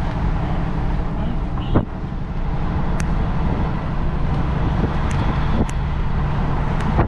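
Steady engine and road rumble of a vehicle on the move, with a few sharp clicks or knocks, the loudest just under two seconds in.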